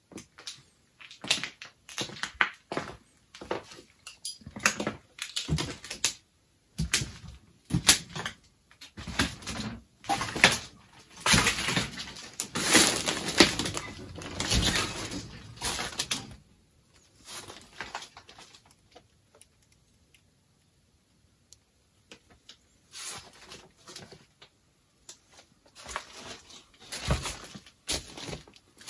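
Footsteps crunching irregularly over rough ground, busiest through the first half, then a near-silent pause about two-thirds of the way through before the steps resume near the end.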